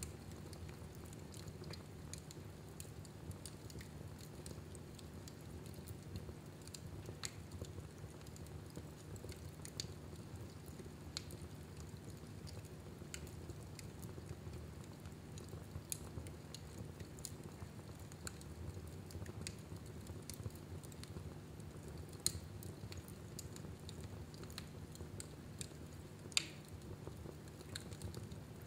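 Fire crackling in a fireplace: scattered sharp pops and snaps over a steady low rumble, with two louder pops in the last third.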